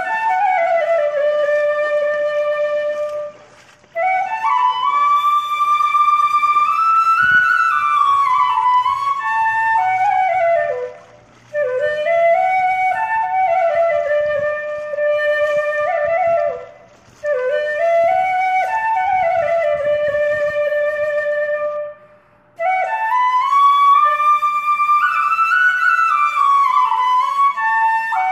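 Background music: a solo flute playing a slow, gliding melody in long phrases, with brief pauses between them.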